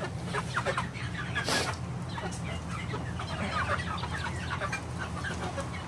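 A flock of Cornish cross broiler chickens calling, with many short calls overlapping throughout. A steady low hum runs underneath, and there is a brief rustling noise about one and a half seconds in.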